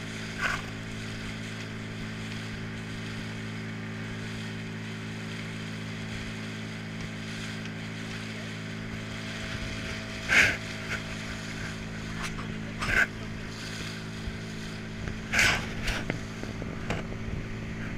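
A boat's engine running steadily at idle, with a few short bursts of splashing as dolphins surface close by, about ten, thirteen and fifteen seconds in.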